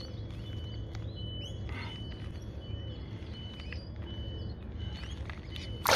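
A bird calling: a short, high, single-pitched note repeated about every two-thirds of a second, with a few faint rising chirps. Under it is a steady low rumble of background noise.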